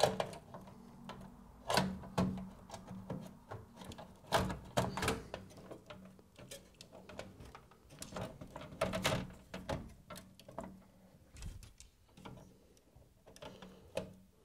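Irregular clicks, knocks and light scrapes of a motherboard being handled and seated into a metal PC case, its rear ports pushed into line with the I/O blanking plate, over a faint steady hum.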